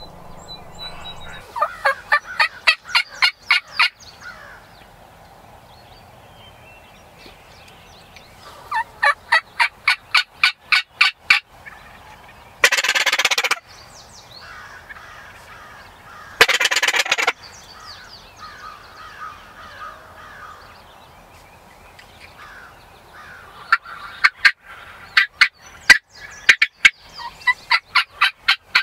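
Wild turkeys calling: runs of rapid yelps, about five notes a second, near the start, around nine to eleven seconds in and again near the end, with two loud gobbles of about a second each in between.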